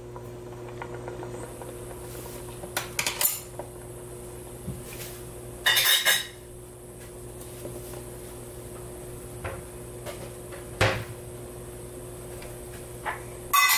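Kitchen clatter of dishes and utensils knocked together a handful of times, the loudest about six seconds in, over a steady low hum.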